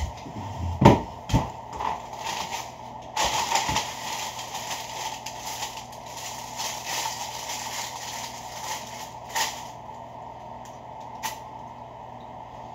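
Paper rustling and crinkling as a McDonald's paper bag and a sausage muffin's paper wrapper are handled and unwrapped, with a couple of sharp knocks in the first two seconds, the loudest about a second in, and a few single clicks later.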